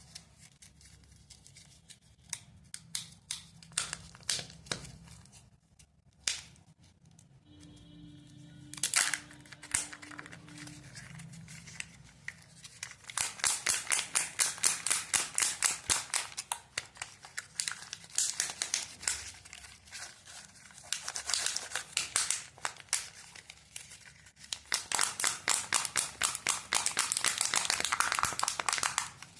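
Kinder Joy eggs' foil-plastic wrappers crinkling and tearing: scattered crackles at first, then long runs of rapid crinkling from about halfway on. Faint music plays underneath.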